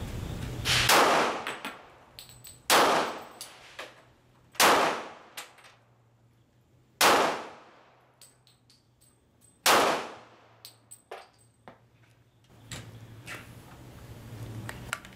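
Five slow, deliberate pistol shots from a Gen 4 Glock 23 in .40 S&W, spaced about two to three seconds apart, each a sharp crack with a short ringing tail, with small metallic clicks and clinks between them.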